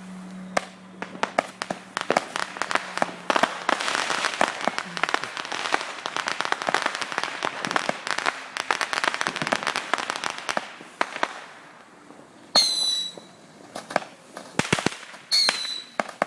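Consumer fireworks going off: a rapid, dense string of crackling pops for about ten seconds, then two short whistles that fall in pitch near the end.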